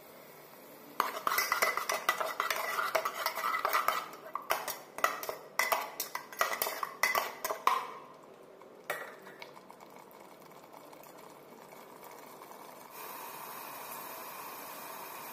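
A flat steel spatula stirring thick curry gravy in an aluminium pot, scraping and clinking against the metal for several seconds, then a single knock on the pot. A faint steady hiss follows near the end.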